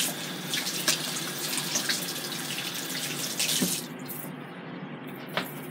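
Kitchen sink faucet running while hands are washed under it, the water splashing; the tap shuts off a little under four seconds in, followed by a single click.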